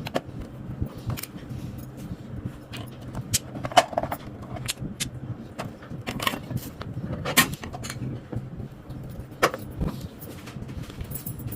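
Irregular clicks and knocks of small hard objects being handled, the loudest about 4 and 7.5 seconds in, over a steady low hum.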